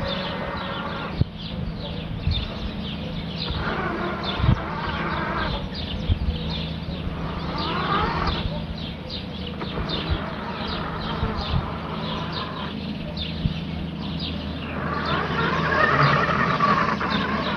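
A Toadi robotic lawn mower running with a steady low hum while it turns on the spot instead of moving off, stuck in one place. Many short high bird chirps sound over it, with a few sharp clicks, the loudest about a second in and about four and a half seconds in.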